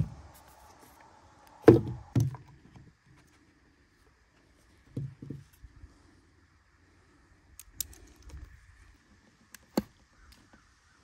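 Several knocks of camping gear handled on a wooden picnic table, then a sharp click near the end as an electric kettle's plug is pushed into a portable power station's outlet.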